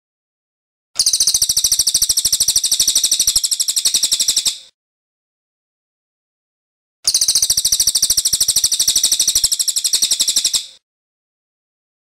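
A cililin (racket-tailed treepie) giving its long rolling call twice: each is a fast, loud, high-pitched rattle of evenly spaced notes lasting about four seconds, with a few seconds of silence between.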